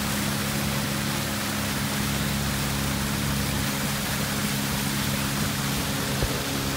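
Boat motor running at a steady speed, a constant low hum, under a steady hiss of rushing water.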